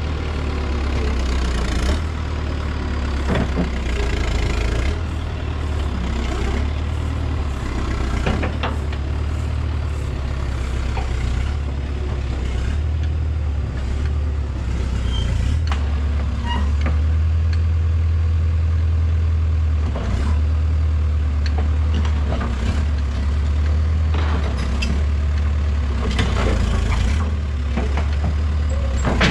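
Case Poclain 688 tracked excavator's engine running steadily under load as the machine is driven down off a low-loader trailer, with a few sharp knocks and clanks along the way.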